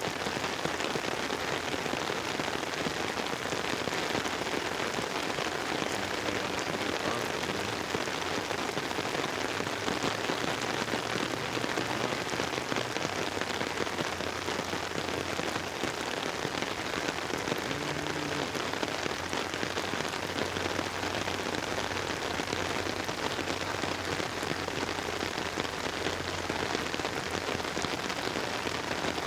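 Steady rain drumming on an umbrella overhead, a dense even patter of drops on the fabric.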